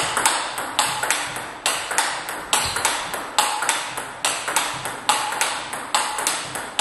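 Table tennis rally: a celluloid ball struck back and forth by rackets, one of them a TIBHAR Jorgic blade, and bouncing on the table. The clicks come at a steady pace of about two to three a second, each with a short ring in the hall.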